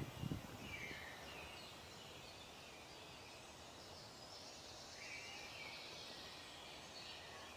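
Faint outdoor nature ambience: a steady hiss with a few scattered bird calls, one about half a second in and a longer run around five seconds in, and a couple of low thumps right at the start.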